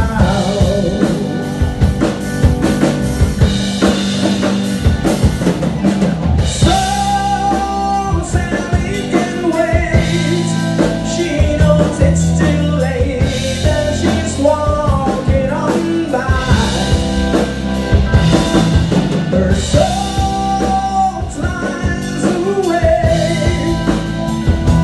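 Live rock band playing a song: a male singer singing into a handheld microphone over electric guitar, bass guitar and a drum kit keeping a steady beat.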